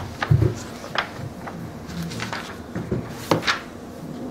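Pages of a large hardcover book being leafed through and handled: a handful of short, crisp page rustles and soft knocks against the table, two of them close together near the end.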